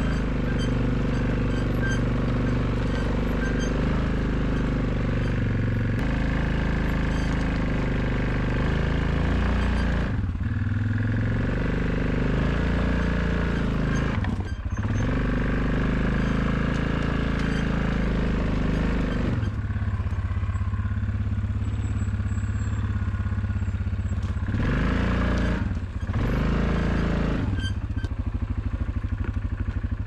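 ATV engine running as it is ridden, its note stepping up and down several times with the throttle.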